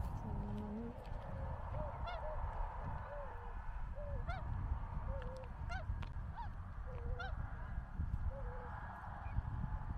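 A flock of wild swans or geese calling: a dozen or so short calls from several birds, scattered through the whole time with no regular beat.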